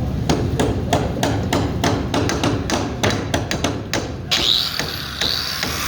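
Rapid, evenly spaced hammer blows, about three to four a second, stopping about four seconds in, when a steady high hiss with a brief gliding tone takes over.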